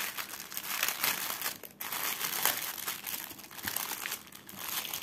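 Plastic packaging bag crinkling in short irregular rustles as it is opened and a printed cross-stitch canvas is drawn out of it, with a brief lull a little under two seconds in.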